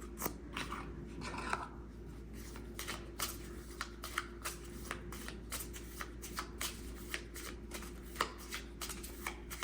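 A deck of small Lenormand cards being shuffled by hand: a run of quick, irregular card clicks and flicks.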